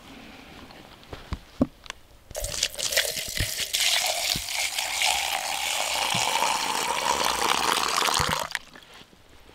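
Water poured in a thin stream into a cup. The pour starts about two seconds in and runs steadily for about six seconds, rising a little in pitch as the cup fills, then stops near the end. A few light knocks come before it.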